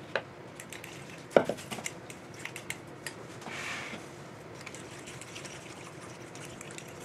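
A plastic mixing bowl knocked down on the wooden counter about a second in, then a spoon clinking and scraping as it stirs wet oat batter in a ceramic baking dish, with a short scraping swish a little after three seconds.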